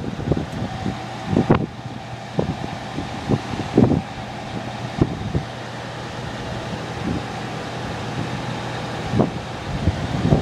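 Fire truck's engine running with a steady hum, with wind and scattered short knocks and thumps over it.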